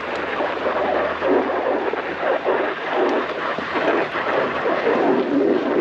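Snowboard sliding and scraping over snow in an uneven rush that swells and eases every second or so.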